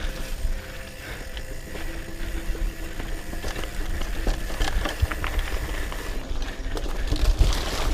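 Hardtail mountain bike riding fast down a dirt trail: tyres running over loose dirt and the bike rattling, with scattered sharp clicks and knocks over bumps. A heavy rumble of wind buffets the microphone.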